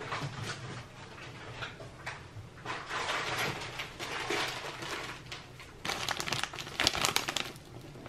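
Rummaging in a wicker storage basket and handling foil food pouches: irregular rustling and crinkling, loudest near the end as the packets come out, over a faint steady low hum.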